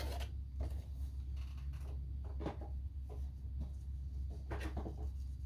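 Scattered light rustles and taps from hands handling the packaging and contents of a diamond painting kit, over a steady low hum.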